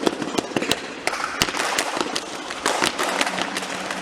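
Many sharp hand claps and slaps in quick, uneven succession.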